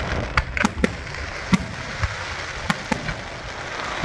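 Fireworks display: about six sharp bangs of shells launching and bursting at irregular intervals, over a continuous hiss.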